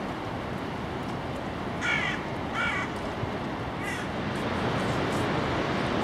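A crow cawing: two harsh caws about two seconds in and a shorter third call at about four seconds, over the steady rush of the Rhine Falls.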